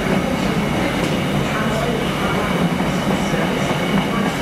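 Container freight train wagons rolling steadily past, a continuous rumble of wheels on the rails.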